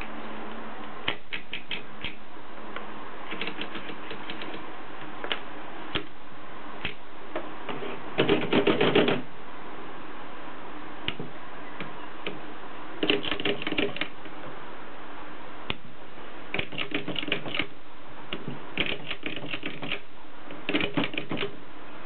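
Mercedes 3 typewriter being loaded with paper: the platen is turned to roll the sheet in, giving about five bursts of rapid ratcheting clicks, the loudest about eight seconds in, with scattered single clicks between.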